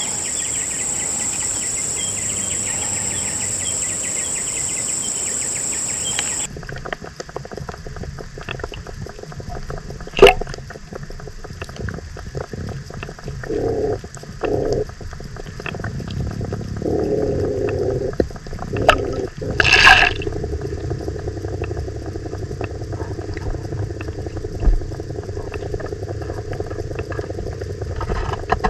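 Insects trilling steadily on the shore for the first six seconds or so, then cut to muffled underwater sound picked up through a camera on the lake bed: a low water rumble with scattered clicks and knocks, one sharp loud click about ten seconds in and a louder burst of noise about twenty seconds in.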